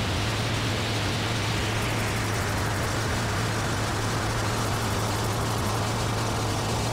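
Live electronic noise music from circuit-bent toys and analog gear: a dense hiss that slowly grows darker, its bright top sinking, over a steady low hum.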